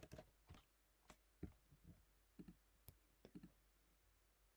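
Faint, irregular clicks of a computer keyboard and mouse: about a dozen separate keystrokes and clicks spread over a few seconds while a time is typed in.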